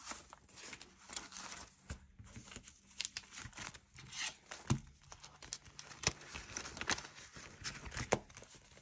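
Paper banknotes rustling and crinkling as they are handled and shuffled, with scattered light clicks and taps.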